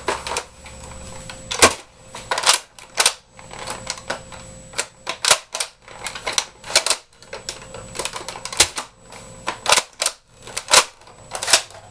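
Nerf Zombie Longstrike spring-powered dart blaster being primed and fired over and over: a run of sharp plastic clacks and pops, often in close pairs, about one to two a second.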